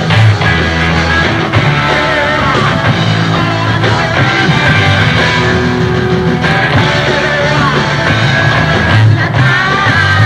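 Rock band playing live, loud: electric guitar, bass and drums in an up-tempo number.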